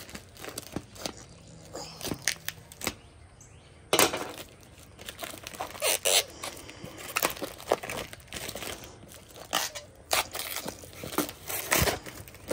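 Grey plastic mailer and packing tape being torn and crumpled off a cardboard shipping tube by hand: a run of crinkles and sharp rips, the loudest about four seconds in.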